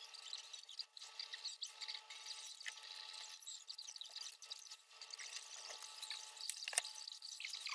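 Balsa-wood kit sheets and laser-cut parts being handled and slid over a workbench: faint, irregular rubbing and scraping, with a paper plan sheet handled near the end and one sharp tap about seven seconds in.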